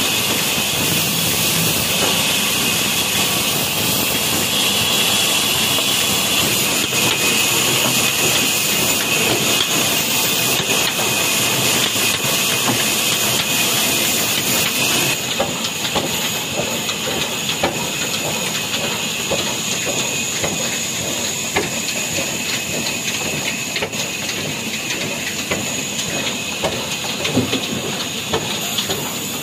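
Band saw cutting through a log with a steady high hiss over the running of the old stationary diesel engine that drives it. About halfway through, the sawing hiss drops away and the engine's rapid, even chugging is left.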